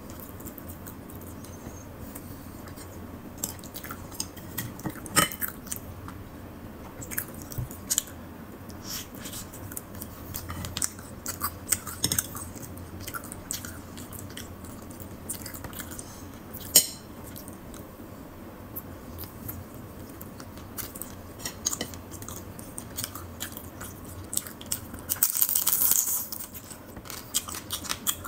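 Close-up eating sounds: chewing and biting into bread and crab, with many sharp clicks and crunches and a short, louder crackle near the end.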